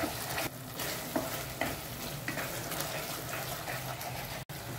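A spoon stirring sauce sizzling in a hot pan, with light scraping strokes against the pan. This is the chilli-soy sauce being mixed just after the cornflour slurry has gone in, to thicken it.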